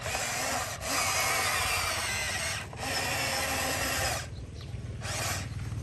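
Small electric motors of a radio-controlled tracked rig whirring in spells as it turns and moves, a high, drill-like whir that stops and starts again four times.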